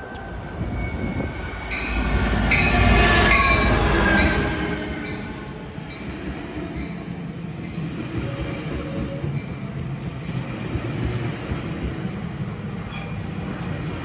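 Sound Transit Sounder commuter train passing close by at speed. About two seconds in, the front end goes by as the loudest part, a rush whose tones slide down in pitch. Then come the steady rumble and wheel noise of the bilevel coaches rolling past, with a few faint, brief, high wheel squeals near the end.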